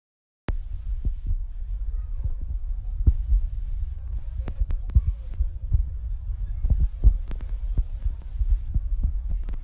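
A loud, uneven low rumble with irregular thumps and scattered sharp clicks, cutting in suddenly about half a second in.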